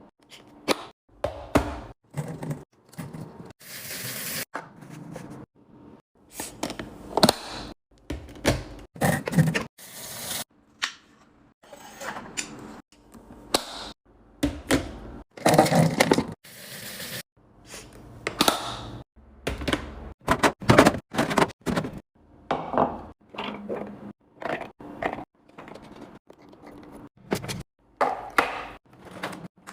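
Items being loaded into a refrigerator: a long, irregular run of clunks, knocks and clatters as containers are set down and shuffled on the shelves.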